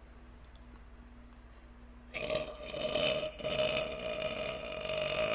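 A woman's long, drawn-out burp, starting about two seconds in and held for about three seconds at a steady pitch.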